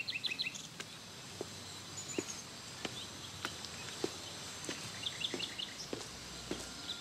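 Footsteps on stone paving at a steady walking pace, about one step every 0.6 seconds, with small birds chirping at the start and again about five seconds in. A low hum comes in near the end.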